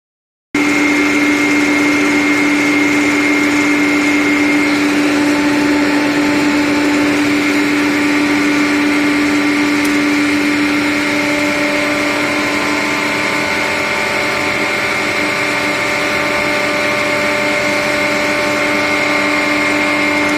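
Steady machinery drone of HVAC plant motors and pumps running, with a constant low hum and a thin high-pitched whine over it. About eleven seconds in the drone eases slightly and a new mid-pitched tone joins.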